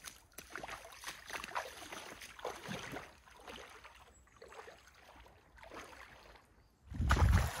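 Wellington boots wading through shallow lake water, an irregular slosh and splash with each step. Near the end a louder low rumble comes over the microphone.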